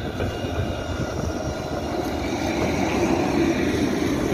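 Alstom Citadis low-floor electric tram running past on wet rails, growing louder as it nears, with a faint steady high whine over the rolling noise.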